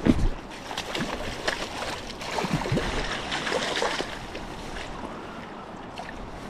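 River water splashing and sloshing over the steady rush of the current while a hooked coho salmon is brought in. The splashing is irregular and busiest in the first four seconds, then settles to a quieter steady rush.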